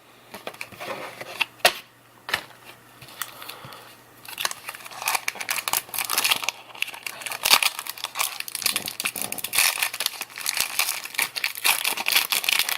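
Trading card pack wrappers being crinkled and torn open, with scattered clicks at first and then steady crinkling from about four seconds in.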